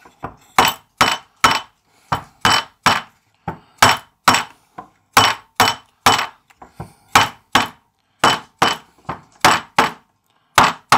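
A small hammer tapping repeatedly on the slotted frame parts of a model ship's hull skeleton, driving the interlocking joints home. The sharp knocks come about two to three a second, often in little groups of two or three with short pauses between.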